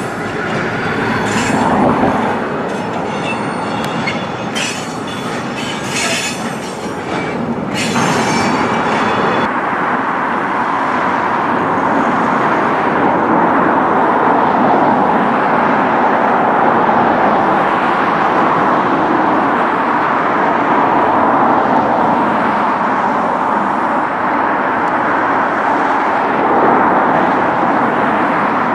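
Diesel freight train of bogie flat wagons loaded with steel rolling past, its wheels squealing and clicking over the pointwork. About eight seconds in this gives way to a steady, even rushing noise that runs on, a little louder.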